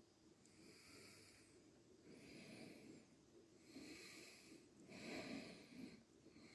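Near silence, with faint, soft breaths repeating about every second or so.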